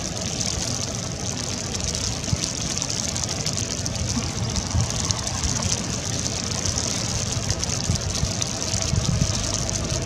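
Steady outdoor background noise: an even hiss with a low, engine-like hum beneath it.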